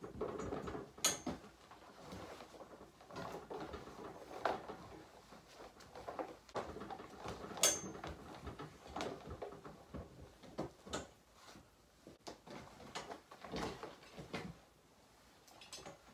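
Horse tack being handled and hung on wall racks: rustling with scattered knocks and clinks, two of them sharp, about a second in and again near the middle.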